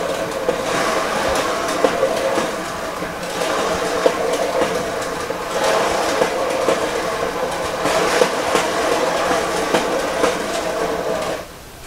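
A spinning turntable under a canvas, rotating steadily with a rolling rumble and light clatter that swells and eases in a slow rhythm. It stops abruptly just before the end.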